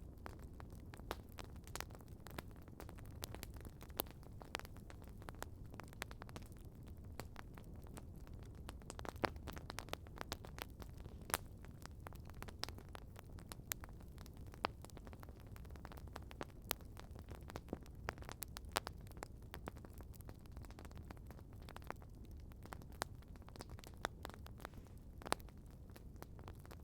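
Wood campfire crackling: irregular sharp pops and snaps over a steady low rumble of burning.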